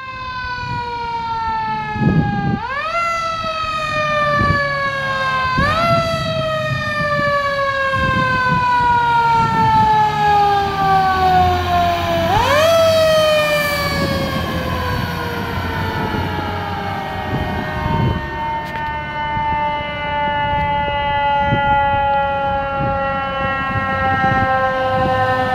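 Fire truck siren wailing as the fire engine and squad truck pass: three times it winds up quickly and then slowly winds down, then it settles into a long, slow fall. The trucks' engines rumble underneath.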